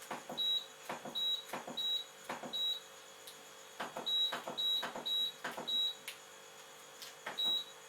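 Esatto front-loader washing machine control panel: buttons pressed one after another, each press a click followed by a short high beep, about nine times in two runs with a pause in the middle.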